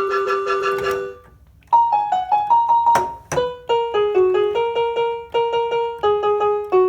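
Rock Jam RJ-661 electronic keyboard being played: a held, pulsing chord cuts off about a second in, then after a brief pause a quick melody of single notes, each fading away, with a couple of sharp clicks near the middle.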